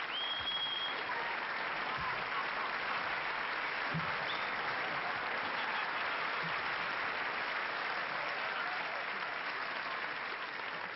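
Audience applauding steadily, with a short high whistle in the first second.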